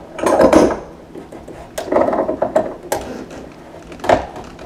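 Slip-joint pliers gripping and turning the slip nut on a sink drain's PVC tailpiece as it is tightened: three short spells of scraping and clicking.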